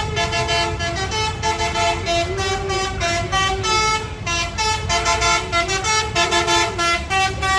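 Telolet basuri multi-tone horn on an Agra Mas intercity bus playing a fast melody of short, changing notes, over the low rumble of the bus and passing traffic.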